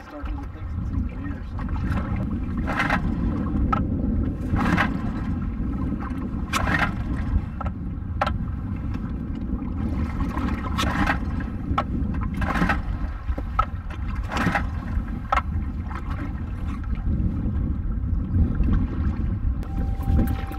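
Repeated pull-starter yanks on a small Tohatsu outboard motor: a short rasp every second or two over the steady low rumble of wind and water around the skiff. Music starts near the end.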